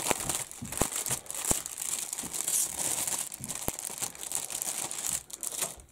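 Clear plastic kit bag crinkling and rustling as a plastic model sprue is handled and slid out of it, with a few sharp clicks along the way. The crinkling stops just before the end.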